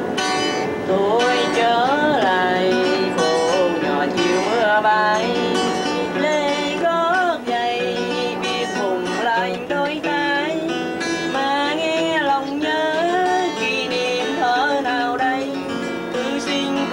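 A guitar strummed and plucked, with a voice singing a melody over it.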